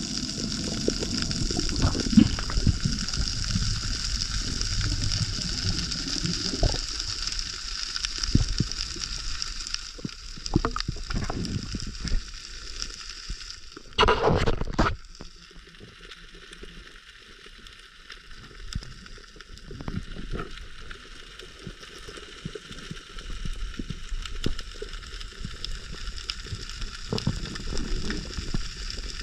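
Water sound heard underwater during a freedive: low, muffled rushing and sloshing. About halfway through there is a brief, louder rumble.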